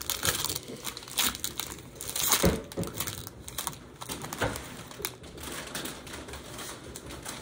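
Pokémon card booster pack wrapper crinkling and rustling as it is torn open by hand, in uneven handling with a few sharper, louder crackles.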